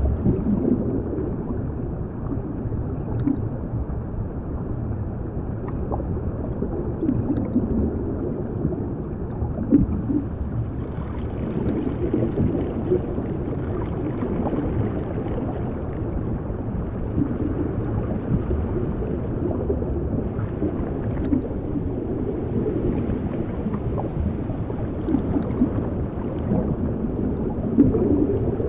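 Underwater sound effect, heard as if submerged: a steady muffled rumble with gurgling water and bubbles.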